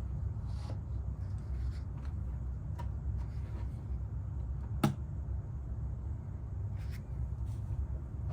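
A stack of paper being handled at a plastic three-hole punch: faint scattered rustles and light clicks, with one sharper click about five seconds in, over a steady low hum.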